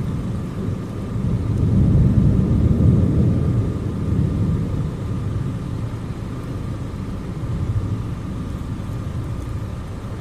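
Rolling thunder from a lightning strike about 5 km off: a low rumble that builds about a second in, is loudest around two to three seconds, then slowly fades. A faint steady hum runs beneath it.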